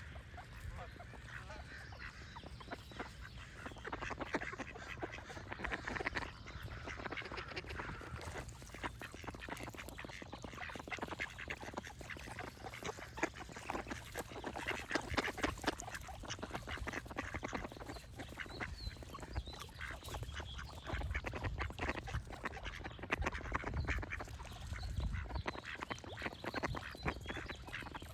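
Ducks quacking over and over, with birds singing in the background and a steady low rumble underneath.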